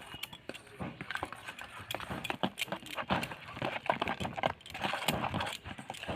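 Irregular clicking and knocking of a utensil against a bowl as flour is stirred into a thick eggless cake batter.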